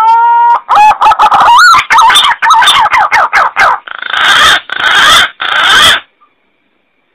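Green pigeon (punai) call, a recording used as a lure for the birds: a long rising whistle, then a run of quick warbling, gliding whistles, then three harsh, rasping notes of about half a second each.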